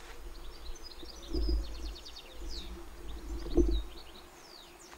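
Small birds chirping and twittering, with quick trills and short downward-sliding calls. Two low bumps of camera-handling noise come about a second and a half in and again past three and a half seconds.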